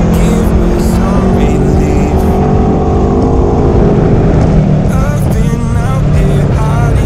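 Aprilia Tuono V4 1100 Factory's V4 engine running hard on track, with music and singing mixed over it.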